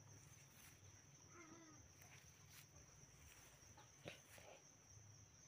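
Near silence outdoors: a faint steady high-pitched whine, a brief faint wavering animal call about a second and a half in, and a single soft click about four seconds in.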